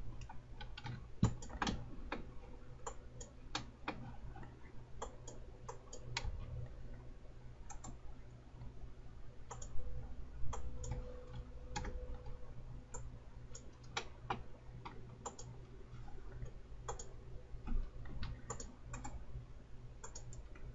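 Irregular clicks of a computer mouse and keyboard, one at a time and in small clusters, over a low steady hum.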